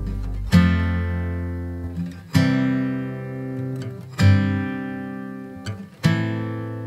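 Background music: strummed acoustic guitar chords, four strums about two seconds apart, each left to ring out and fade.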